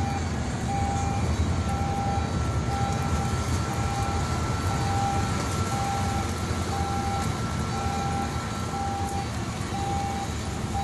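An electronic warning beeper sounds a short beep about once a second over a steady low rumble.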